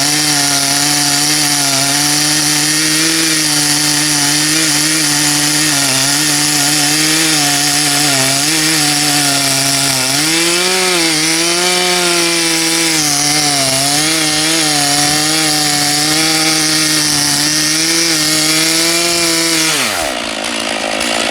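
Stihl MS 461 chainsaw with a 36-inch bullnose bar running at high revs, cutting through a log, its pitch dipping now and then under load. Near the end the throttle is released and the revs fall steeply toward idle.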